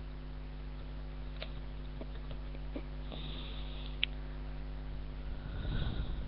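Steady low electrical hum picked up by a webcam microphone, with a few faint, scattered clicks of computer typing and mouse use. There is a breath close to the microphone near the end.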